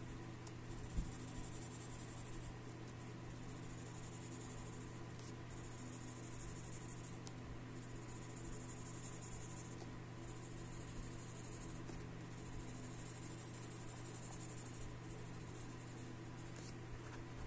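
Graphite pencil shading on paper: scratchy back-and-forth hatching strokes in spells of one to three seconds, with short breaks as the pencil moves to the next circle.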